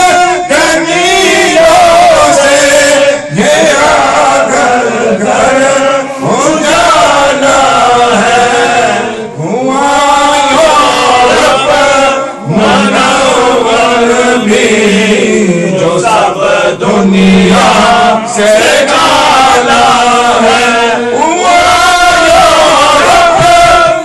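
Group of men chanting Sufi devotional praise (madh) together, loud sustained phrases broken by brief pauses every few seconds.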